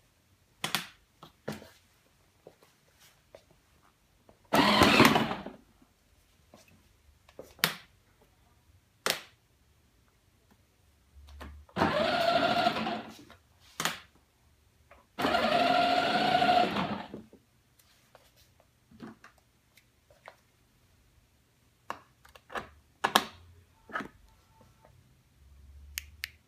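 12-volt ride-on toy ATV's electric drive motors and gearboxes running in two bursts of about two seconds each, with a shorter burst before them. Scattered clicks of switches and plastic parts fall in between.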